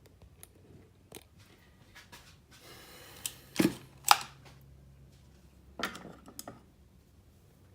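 Pull-start cord of a .18 nitro RC car engine being yanked several times, short sharp zips and clicks with the loudest pair about three and a half and four seconds in. The glow plug is out and the flooded engine is being turned over to blow out the excess fuel.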